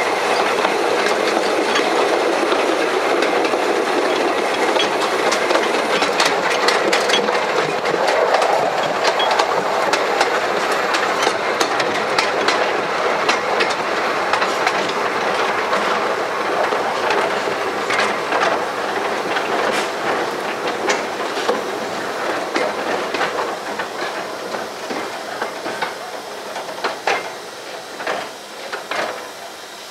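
Narrow-gauge 1883 Hunslet steam locomotive and its train running, heard from the engine's tender: a steady rumble of wheels on rail, with sharp clicks over the rail joints and points. The noise grows quieter and the clicks come farther apart over the last ten seconds or so as the train slows.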